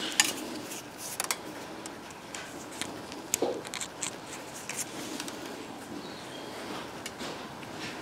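Small clicks and light scrapes of a thin steel wire and a brass plumbing fitting being handled in the fingers, as the wire is pushed through a drilled hole to hold a tapered bolt plunger in place. The ticks come irregularly, loudest near the start and a little past the middle.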